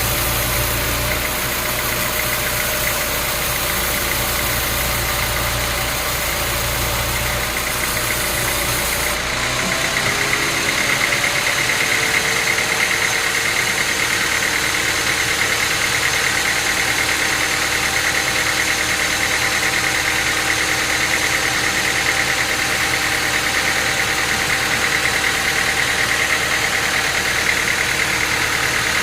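Sawmill machinery engine running steadily. About nine seconds in, the deep low rumble drops away, the pitch shifts and a higher whine comes up and holds.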